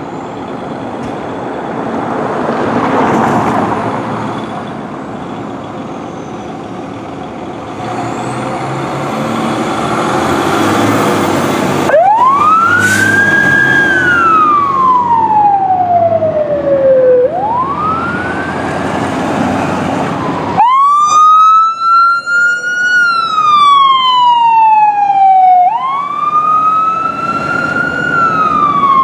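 2004 Pierce Enforcer fire engine's diesel rumbling as it pulls out and accelerates. About twelve seconds in, a siren winds up quickly and falls away slowly, twice. From about twenty seconds a second, buzzier siren sounds in long rising and falling wails, from the following 2017 Dodge Ram 4500 ambulance.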